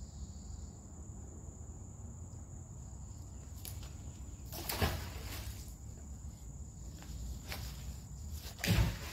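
Steady high insect drone over a low outdoor rumble, broken by a few short scuffs or rustles, the loudest near the middle and just before the end.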